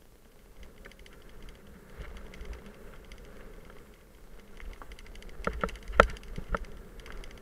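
Mountain bike rattling and clicking over a rough dirt path, with a run of louder knocks from bumps about five and a half to six and a half seconds in, over a low rumble.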